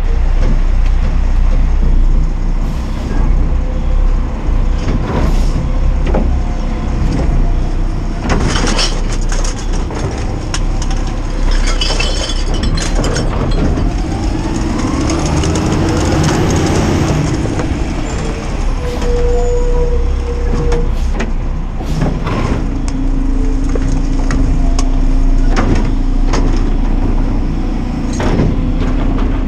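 Side-loader garbage truck working: a deep, steady engine rumble with a few sharp clanks and bangs. Partway through, its pitch sweeps up and down, and a steady hum sets in near the end.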